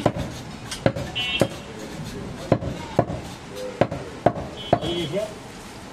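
Butcher's cleaver chopping goat meat: about eight sharp, unevenly spaced chops.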